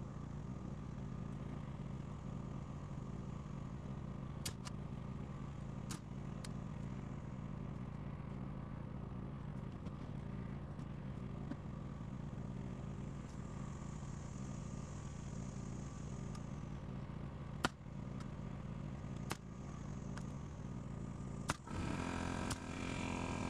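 Portable generator engine running steadily with a low hum, with a few scattered sharp knocks and clicks from work on a wooden frame. About 22 seconds in, a hand-held power tool starts running with a whirring whine.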